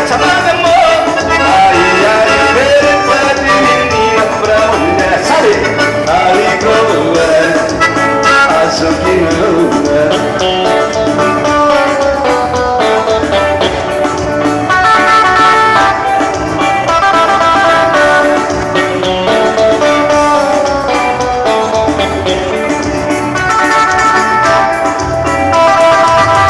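Live band playing an instrumental passage of a modão sertanejo song, with a steady beat and gliding melodic lines over it.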